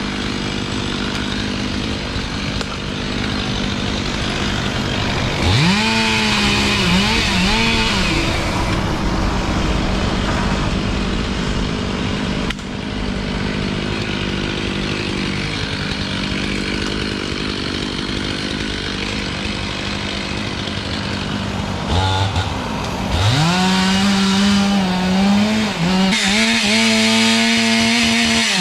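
Chainsaw running steadily, revved up to full throttle twice: briefly a few seconds in, and again for several seconds near the end before it drops back.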